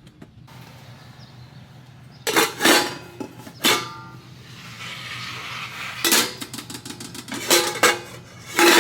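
Room-service dishes and metal cutlery clinking and clattering: about seven sharp knocks with short ringing, in clusters, as plates and covers are handled.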